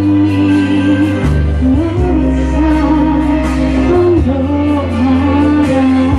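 A woman singing a slow melody into a microphone over instrumental backing, holding long notes that glide between pitches while the low accompaniment notes shift every second or two.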